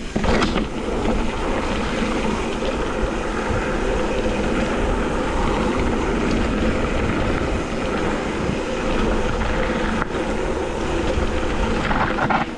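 Steady wind rush and riding noise on a helmet-mounted action camera's microphone while riding a dirt trail, with a brief louder gust near the start and again just before the end.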